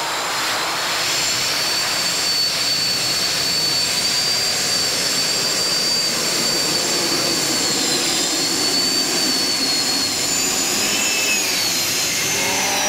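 Modified pulling tractor at full power during a pull, its turbine engines giving a loud, steady roar with a high whine on top that wavers slightly near the end.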